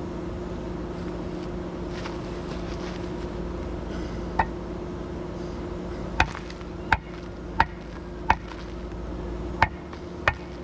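Sharp ringing taps of a hard tool on the bricks of a beehive stand as it is knocked level on uneven ground. There is one tap about four seconds in, then six more from about six seconds on, mostly about 0.7 s apart, over a steady low hum.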